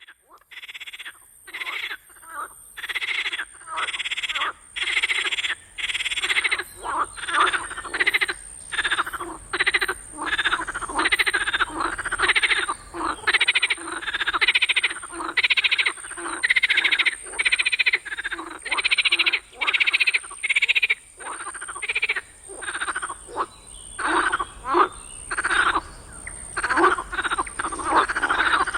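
Chorus of frogs croaking in a swamp at night: many overlapping calls, each about half a second long, following one another more than once a second without a break.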